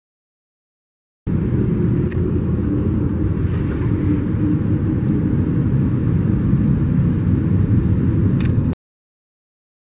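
Muffled low rumble of airport jet traffic heard through terminal glass, with a few faint clicks. It cuts in abruptly about a second in and cuts off abruptly near the end.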